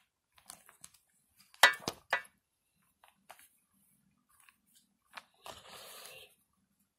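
Small clicks and scrapes from handling a toy power unit while working its batteries loose. Two sharp clicks, the loudest, come about a second and a half in, and a short scraping rustle comes near the end.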